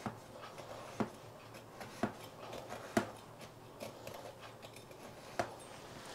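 Two-pronged metal fork jabbed again and again into a baked sponge cake in a stainless steel tin, making holes for an orange drizzle: a series of light clicks, about one a second.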